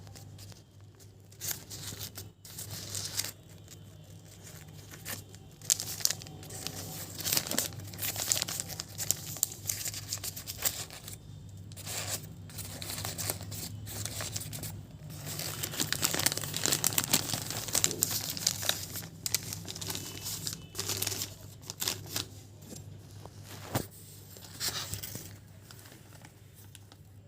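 Irregular crinkling and tearing handling noises with sharp crackles, busiest in the middle stretch, over a steady low hum.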